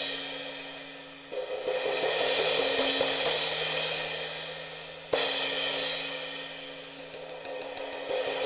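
Groove Crixus White 17-inch hybrid crash cymbal struck with a drumstick. A crash rings out and decays, then a quick run of strokes swells the wash. A second crash comes about five seconds in, and another run of rapid strokes builds near the end.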